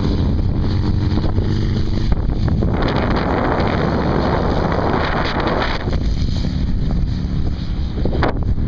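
Wind buffeting the microphone over the low hum of off-road vehicle engines. About three seconds in, a sand-rail dune buggy passes close, making a louder rush that lasts about three seconds and then cuts off.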